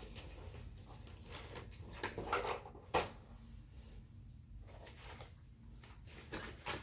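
Rustling and handling noises with scattered clicks and knocks, the sharpest about three seconds in, as a charger cable is fetched and plugged in.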